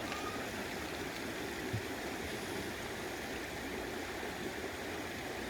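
Mountain stream water flowing and splashing steadily.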